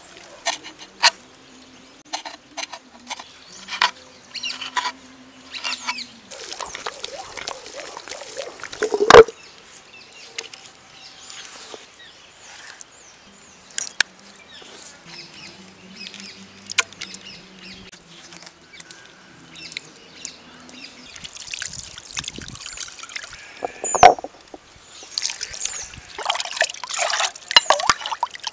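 Traditional stone grinder, a cylindrical stone pestle in a round stone basin, worked with spice paste and water: wet squelching and sloshing with many short stone-on-stone knocks. Two louder knocks stand out, about nine seconds in and again near 24 seconds.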